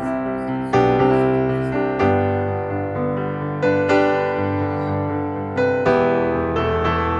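Background piano music playing slow, held chords, with a new chord struck every second or two.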